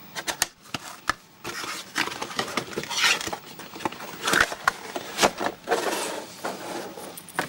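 Cardboard packaging being handled: a sleeve slid off a camera box and the box opened, with scraping and rustling and a string of light knocks and taps.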